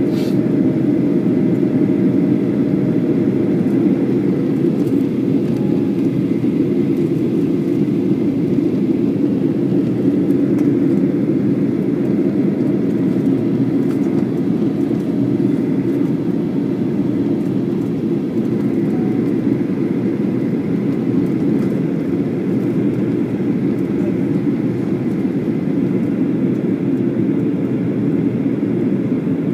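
Steady cabin noise of a jet airliner in flight: engine and airflow sound, deep and even throughout, heard from a window seat.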